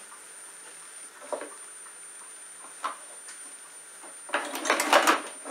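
Kitchen utensils knocking and clinking in an open drawer as a small child rummages through them: a few light clicks, then a short burst of clattering near the end.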